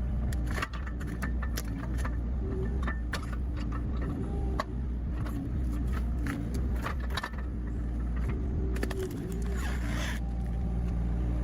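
Engine of a stump-clearing excavator running steadily, with frequent clanks, knocks and scraping as the hydraulic arm and steel claw work the ground.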